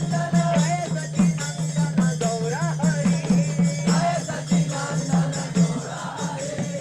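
Congregational kirtan chanting, with a group of voices singing over mridanga drums that beat a steady rhythm of about three strokes a second and kartal hand cymbals jingling throughout.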